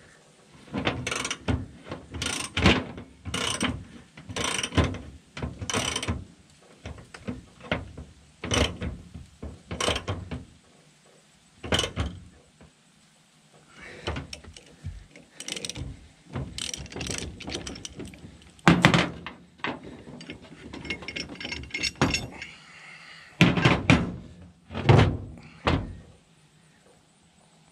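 Metal-on-metal work on the U-joints of a double cardan driveshaft: a ratchet clicks and clanks in short repeated strokes, about one or two a second in runs, with a few brief pauses.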